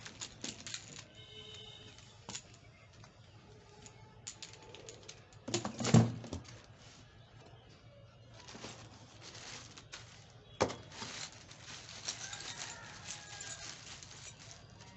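Handling noise from unpacking pressure-washer parts out of a foam-lined cardboard box: scattered clicks, knocks and rustling as the hose and accessories are lifted out, with one louder thump about six seconds in.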